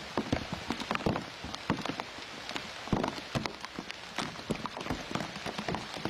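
Rain falling, with many drops striking close by as irregular sharp taps over a steady soft hiss.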